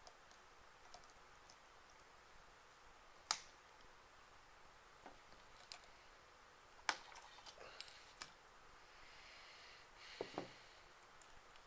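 Scattered small clicks and taps of parts being handled while assembling an RC helicopter rotor head, over near silence. The sharpest click comes about three seconds in and another near seven seconds, with a close pair around ten seconds.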